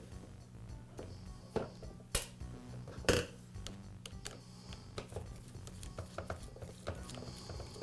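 Small metal clicks and clinks of a screwdriver working the wire terminal screws on a power-tool toggle switch, with a few sharper clicks standing out and a small screw dropped on the steel workbench.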